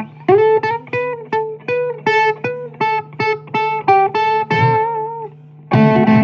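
Blues guitar playing a quick single-note lead run, about five plucked notes a second with bent notes, over a steady low drone; fuller strummed chords come back near the end.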